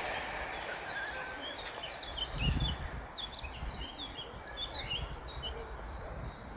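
Small birds chirping in many short, quick calls over a soft outdoor hiss, with a brief low thump about two and a half seconds in.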